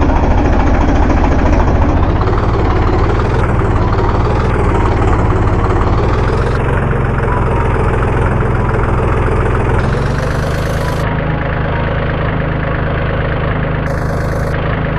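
Engine sound effect of a tractor running steadily, laid over a push-along plastic toy tractor.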